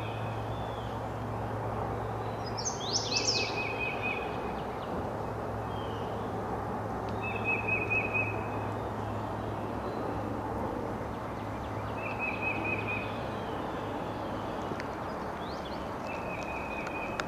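A songbird sings a short, dry trill over and over, about every four to five seconds, with a quick run of high falling whistles about three seconds in, over a steady rushing hiss.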